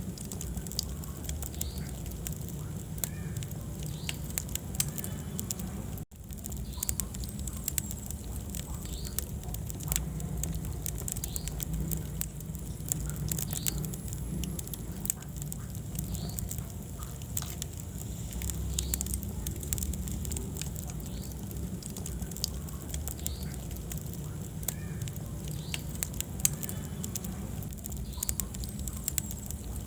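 Wood fire burning in a fireplace: a steady low rumble of flames with frequent sharp crackles and pops from the burning logs. The sound drops out for an instant about six seconds in.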